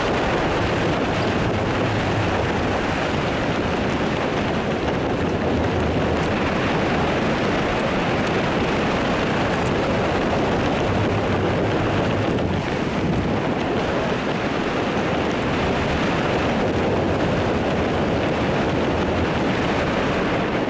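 Steady wind buffeting the camera microphone during a tandem descent under an open parachute canopy, a continuous rushing noise with no break.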